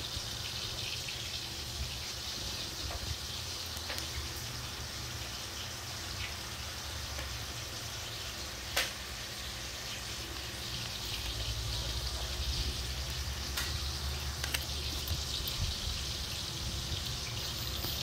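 Electric fan running: a steady hiss over a low hum, with a single sharp click about nine seconds in and rougher rumbling from the phone being handled in the second half.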